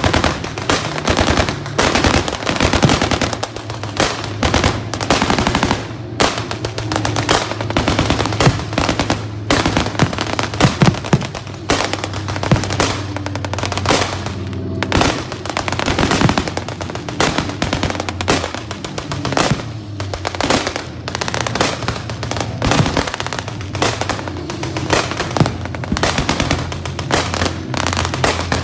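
Sustained gunfire from an air raid reenactment: rapid, overlapping shots, several a second, in irregular volleys. Music and a steady low hum run underneath.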